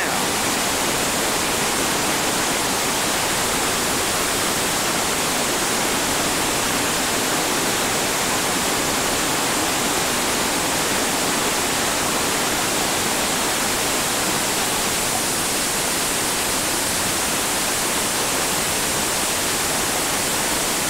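Whitewater rushing steadily over a bedrock waterfall drop, an even wash of water noise.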